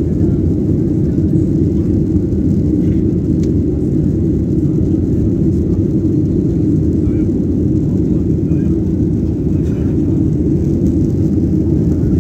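Airliner cabin noise in flight, heard from inside the cabin: a steady low rumble of engines and rushing air.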